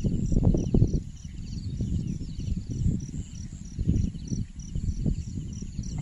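Insects calling: a short high chirp repeating evenly about three times a second, with a fainter trilling below it, over a loud, uneven low rumble.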